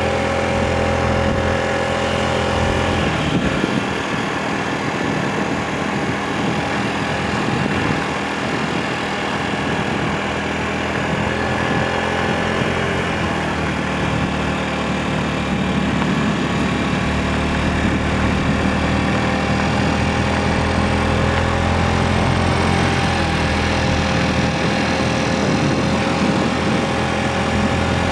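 A vehicle's engine running steadily as it drives slowly, a constant even hum that hardly changes pitch.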